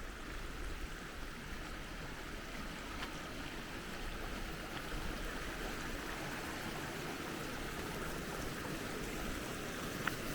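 Steady rush of running water from a mountain stream and its falls, with a few faint ticks.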